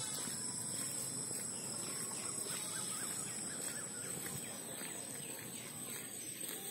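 Steady high-pitched insect chorus from the roadside vegetation, with a few short bird chirps about two to four seconds in, over a steady background hiss.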